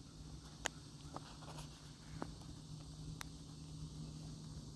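Quiet room tone in a pause between spoken phrases: a faint steady low hum with a few soft, brief clicks.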